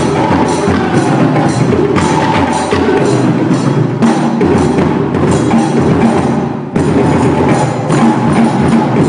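Percussion music: rhythmic drumming with sharp wood-block-like clicks, with a brief break about two-thirds through.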